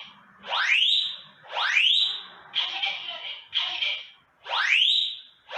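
Fire alarm detector sounding during an activation test: a loud electronic tone rising in pitch, given twice about a second apart, then two short recorded voice warnings, with the cycle repeating about every four seconds.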